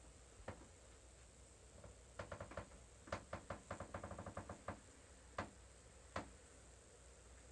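Light knocks and clicks: one about half a second in, then a quick rattling run of them lasting about two and a half seconds, and two single knocks near the end.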